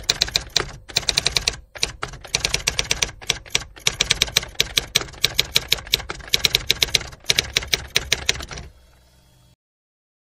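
Typewriter keys clacking in quick runs of strokes with short pauses between runs, stopping shortly before the end.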